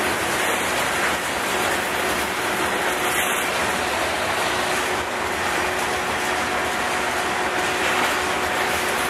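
Covered hopper cars of a freight train rolling past close by: a steady rumble and rattle of steel wheels on the rails, with a faint steady high note running through it.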